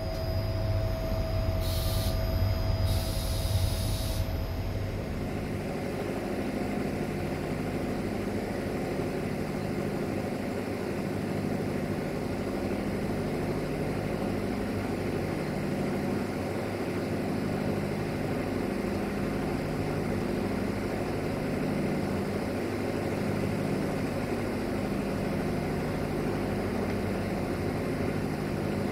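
Diesel multiple unit running, a steady engine and rolling drone with a slow repeating beat. Two short hisses come about two and three seconds in, and a thin steady whine fades out after about five seconds.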